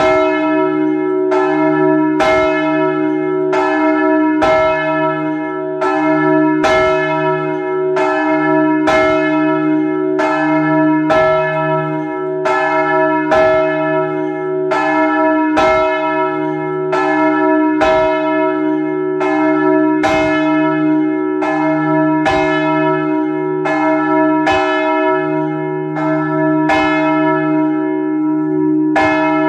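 Plenum of Saint-Nicolas church's swinging bronze bells, rung all together and heard close up inside the belfry. The strokes of the different bells overlap in a continuous tumble, the deepest ones about every two seconds, over a steady humming ring.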